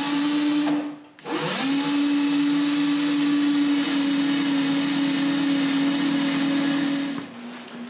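Power drill driving screws into a wooden drawer false front: a short run that spins up and stops, then, after a brief pause, a longer steady run of about six seconds that drops lower and quieter near the end.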